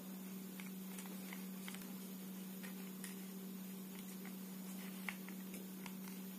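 Faint, irregular clicks and taps of a plastic toy dump truck being handled and turned over in the hands, one tap a little louder about five seconds in, over a steady low hum.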